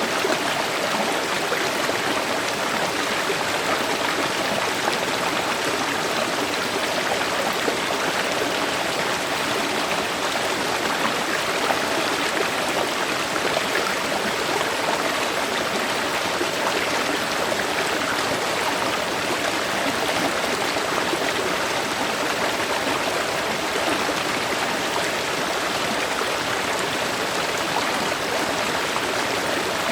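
Shallow forest river or stream flowing steadily over rocks, an even rushing and splashing of water that does not change.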